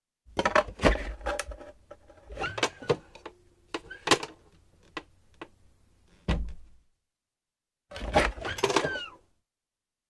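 Small electronic keypad safe being worked by hand: quick metallic clicks, knocks and latch rattles from its handle, locking bolts and steel door. A heavier thud comes about six seconds in, and another rattling burst near the end.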